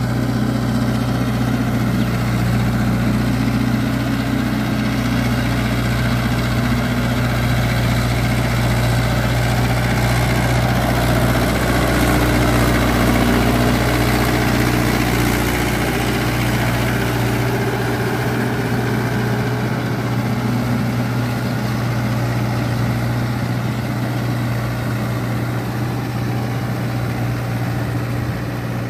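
Mahindra Yuvo 585 DI tractor's four-cylinder diesel engine running steadily under load while it drives a rotavator through wet paddy soil. The deepest rumble thins out a little past halfway.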